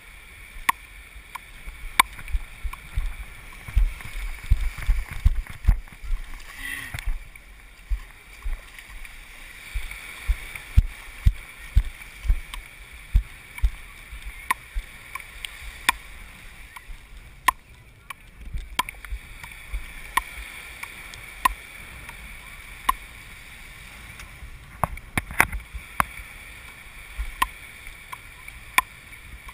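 Frescobol rally: wooden paddles knocking a rubber ball back and forth, a sharp crack about every one and a half seconds, over the steady wash of small surf.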